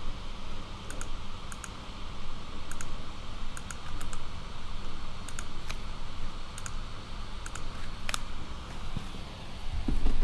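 Irregular light clicks, a few at a time, over a steady low rumble and background noise.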